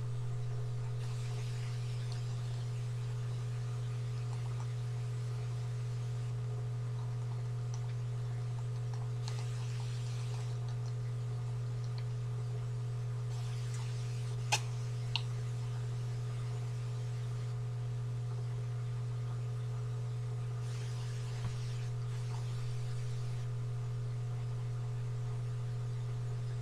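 A steady low electrical hum, with two faint clicks a little past halfway and a third about seven seconds later.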